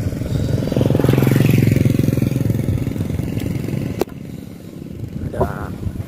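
Motorcycle engine running, swelling loud about a second in and fading away by about three and a half seconds. A single sharp click about four seconds in.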